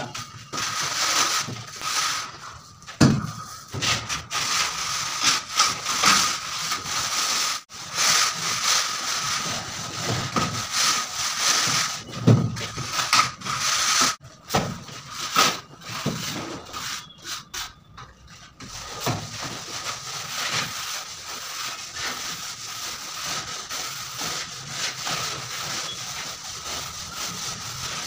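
Straight-edge rule scraping and rubbing across freshly applied cement plaster, cutting off the excess mortar to level the wall, in irregular rough strokes with an occasional low knock.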